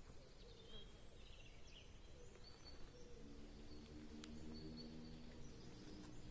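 Faint, short bird chirps repeating over a low background hiss. Soft, sustained background music fades in about halfway through.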